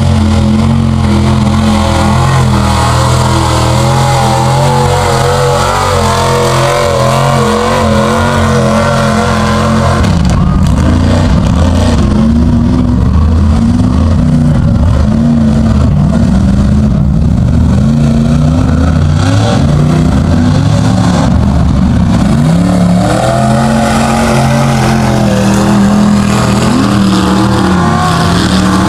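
Old Chevrolet 4x4 pickup's engine running hard in a mud pit, very loud. It holds a steady note for the first third, then revs up and down repeatedly as the truck churns through the mud.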